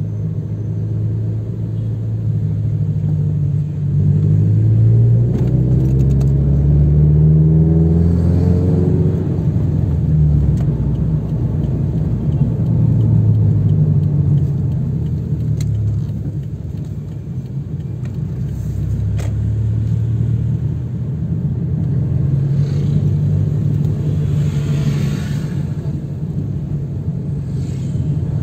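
Toyota 86's flat-four engine and road noise heard from inside the cabin while driving slowly in traffic, the engine note rising as the car accelerates about four seconds in and again near the end.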